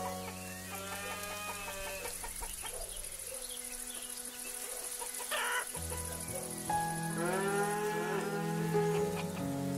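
Farm animals calling over background music with slow held chords: two long calls that bend in pitch, about a second in and again near the end.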